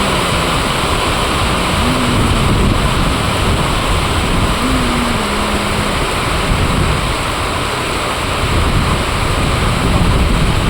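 Heavy rain falling in strong wind: a steady, loud rush, with a few short wavering tones in the first half.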